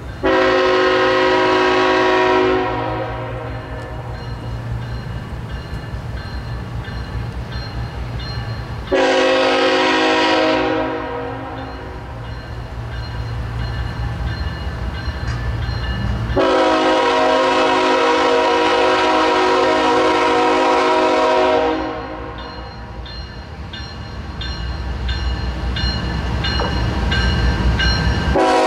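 Air horn of a CSX diesel freight locomotive sounding for grade crossings as the train approaches. There are three blasts, each several pitches sounded together: two of about two seconds and a third of about five seconds, with a fourth starting at the very end. Under the blasts runs the steady low rumble of the locomotive's diesel engine.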